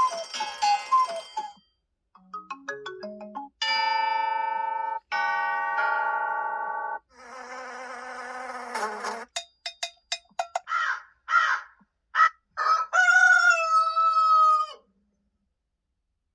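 A string of short built-in electronic sounds from a Google Pixel 7a phone, played one after another: a cluster of chimes, quick blips, two held tones, a buzzy stretch, a run of clicks, a few short pulses and a tone that slides down.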